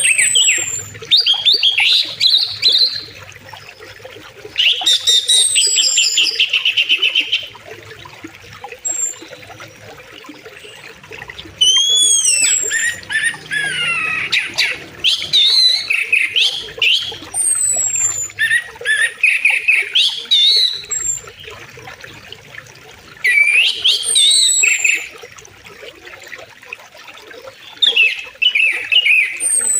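Songbirds singing in short phrases of chirps and trills every few seconds, with high thin falling whistles between them, over a faint steady flow of river water.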